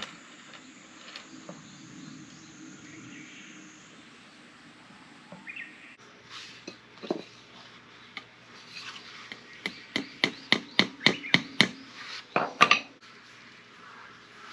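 A small hammer tapping nails into a wooden log, pinning a snake skin to it. After some quiet handling, a quick run of about a dozen light strikes comes at about four a second in the second half.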